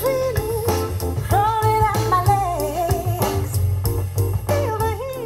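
A pop song with a woman singing over guitar and bass, played through a car's audio system with Hybrid Audio Unity 2-inch drivers in the factory dash location firing onto the windscreen. The sound is bright, with the hi-hats and the top of her voice over-pronounced now that the factory grille over the drivers has been cut open.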